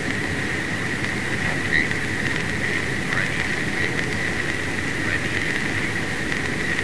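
Steady drone of a B-17 Flying Fortress's engines and airflow heard from inside the cockpit in flight, a low rumble with a thin high whine running through it.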